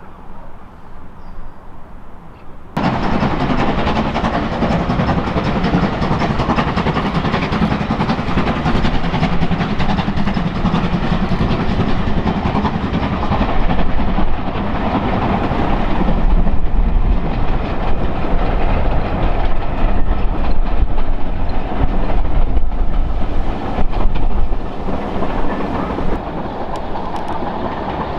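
Steam train running, loud and steady, cutting in abruptly about three seconds in after a quieter opening.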